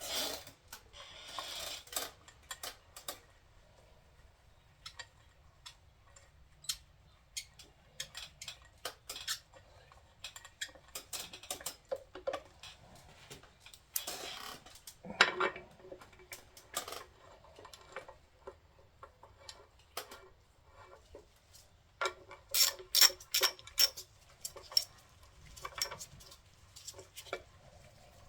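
Metal hand tools and bolts clinking and clicking while bolts are run into the front of an LS 5.3 V8 block with a short hand ratchet, with a run of quick ratchet clicks near the end.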